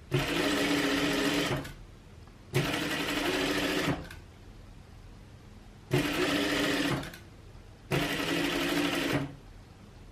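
Sewing machine stitching in four short runs of about a second and a half each, stopping briefly between them, as it sews down a quarter-inch fold along one edge of a fabric strip.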